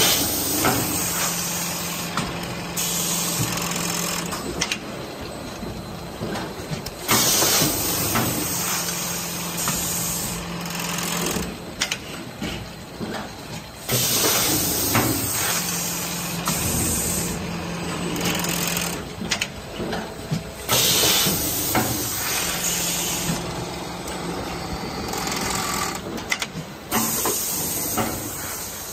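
An automatic bag-handling machine cycling pneumatically: about every seven seconds there is a loud burst of compressed-air hiss with clicks and clanks from the clamps and cylinders, then a steady hum for a few seconds before the next cycle.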